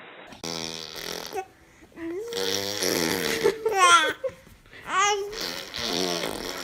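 Baby vocalising: babbling, with high squeals that glide quickly up in pitch.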